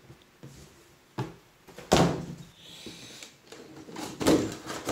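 Cardboard board-game pieces and box being handled: a folded game board is moved off the box insert, giving a few dull knocks and scrapes, the loudest about two seconds in and another near the end.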